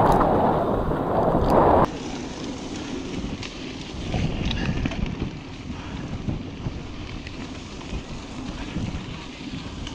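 Wind buffeting the microphone of a camera on a mountain bike riding fast over a dirt track, with tyre rumble on the dirt. About two seconds in it drops suddenly to a quieter low rumble of the tyres on the track with a few faint clicks.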